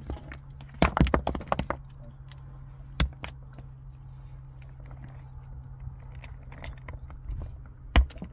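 Sharp knocks and cracks, likely from hand work on the shelter. A quick cluster comes about a second in, then a single knock at about three seconds and a loud one near the end, over a steady low hum.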